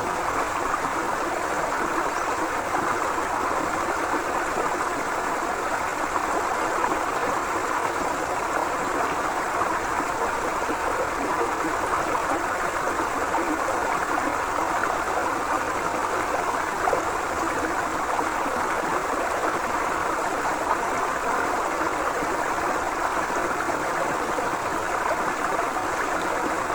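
A forest river flowing steadily, an even rushing and gurgling of water.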